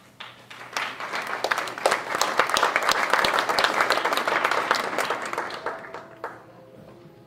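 Theatre audience applauding: the clapping swells about a second in, holds, then dies away near the end.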